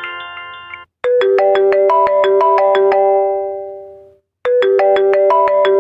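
iPhone ringtones previewed in a ringtone app. A rising run of bright notes ends under a second in, then a different ringtone of quick repeated notes plays and fades out. It starts over about four and a half seconds in and is cut off near the end.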